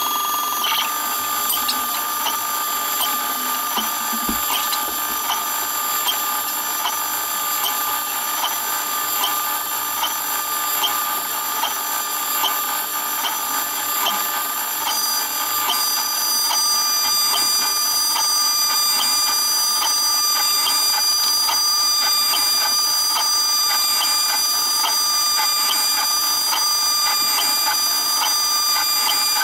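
CNC router spindle running with a steady high whine while its end mill cuts a pocket in a wooden knife-handle blank, with regular short ticks from the cutting. About halfway through, the whine changes pitch and grows slightly louder.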